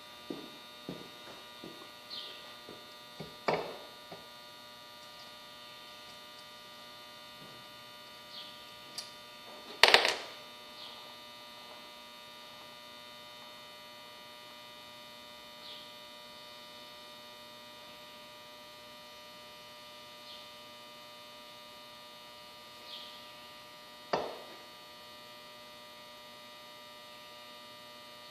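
Steady electrical hum made of several constant tones, broken by a few sharp knocks or clinks: the loudest about ten seconds in, others about three and a half and twenty-four seconds in.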